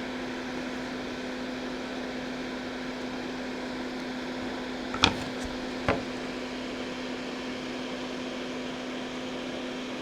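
Steady machine hum with a constant low tone throughout, and two sharp taps a little under a second apart about halfway through.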